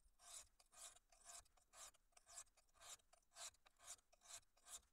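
A high-carbon steel knife blade stroked back and forth across a flat sharpening stone, about ten even rasping strokes at roughly two a second, grinding an edge before honing.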